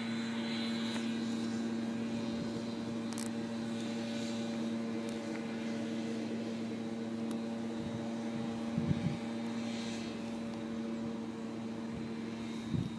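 A machine running with a steady, constant hum and a few soft knocks about two-thirds of the way in and near the end.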